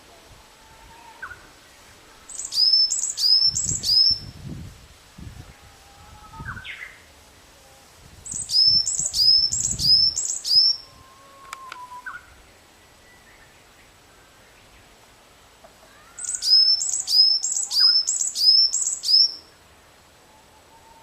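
Varied tit singing: three song phrases, each a quick run of four to seven repeated high notes that each slide down in pitch, with pauses of several seconds between phrases.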